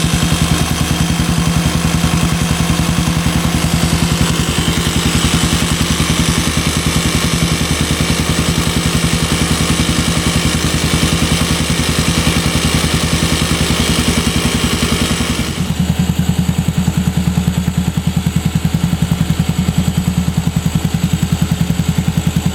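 A motor running steadily with a rapid, even pulse. About fifteen seconds in its sound changes and the higher hiss drops away.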